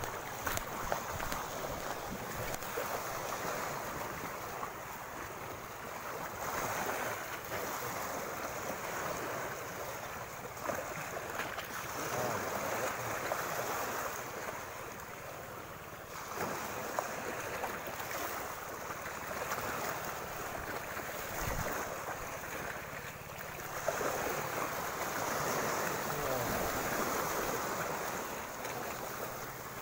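Sea waves washing in at the shoreline, the surf noise swelling and fading every few seconds, with wind buffeting the microphone.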